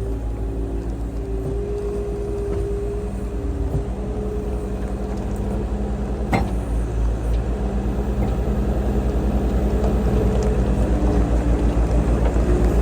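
Engine of a small work machine running steadily, with several steady tones shifting in pitch over it. There is one sharp knock about halfway through, and the machine grows slightly louder near the end.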